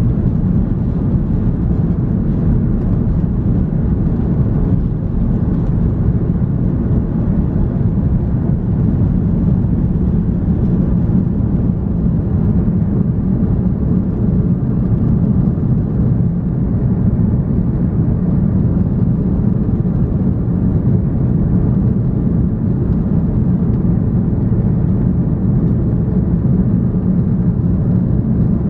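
Steady, loud low drone of an Airbus A330-300 airliner's engines and airflow, heard inside the passenger cabin; it holds unchanged throughout.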